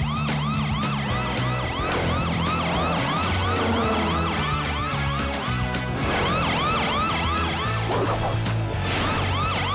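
Cartoon police siren yelping rapidly, about three rising-and-falling whoops a second, over upbeat background music with a steady bass line.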